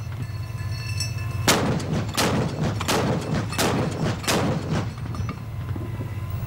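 A Scimitar's 30 mm Rarden cannon firing a short burst of single heavy shots, about five in a row at roughly one every 0.7 s, starting about a second and a half in, over a steady low rumble.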